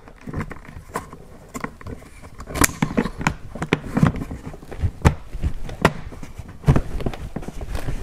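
Irregular plastic clicks and knocks, about a dozen, as a window switch and interior door handle trim are pushed and worked into a BMW F10 rear door panel to make them seat.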